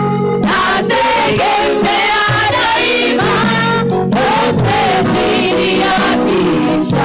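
Gospel worship music: a group of voices singing over a band with a steady beat.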